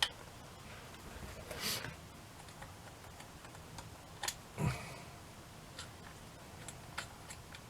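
Faint, scattered clicks and small knocks of brass clock parts and a screwdriver being handled, with a brief scrape about two seconds in and a sharper click and soft knock a little past halfway.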